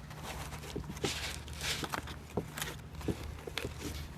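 Packaging rustling with scattered light knocks and clicks as an airsoft rifle is lifted out of its box, over a steady low hum.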